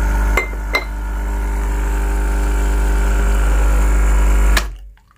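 Nescafé Dolce Gusto capsule coffee machine's pump running with a steady deep hum while it brews into a mug, cutting off abruptly near the end. Two light ceramic clinks from a canister lid come about half a second in.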